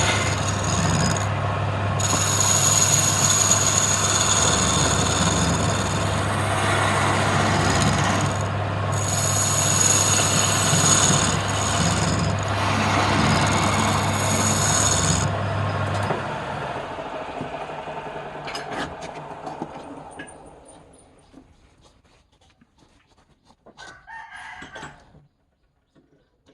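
Wood lathe running with a turning tool cutting into the spinning wood, a steady motor hum under a hissing, scraping cut that comes and goes. About two-thirds of the way through the hum stops and the sound dies away over a few seconds, with a couple of faint knocks near the end.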